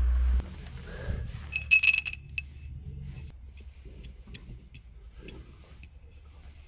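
A low rumble that stops just under half a second in, then a glass bottle clinking: a quick cluster of ringing clinks about two seconds in, followed by light glass ticks, two or three a second.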